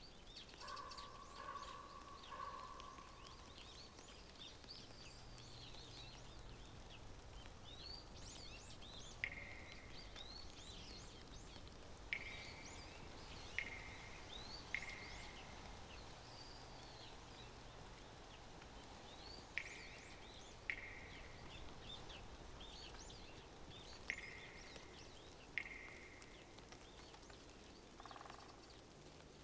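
Faint outdoor ambience of birds chirping. A louder, sharp, short-fading note comes back about eight times at irregular intervals.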